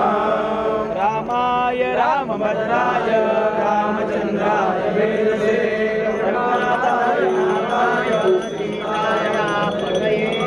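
A group of voices chanting a Hindu devotional chant together, several pitches overlapping in an unbroken line.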